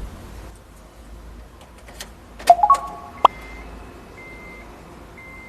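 A few sharp clicks about halfway through, with a short three-note electronic tone stepping upward. Then a high electronic beep repeating about once a second.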